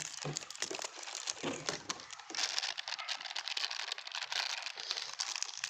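Plastic snack packet crinkling as it is handled and cut open with scissors.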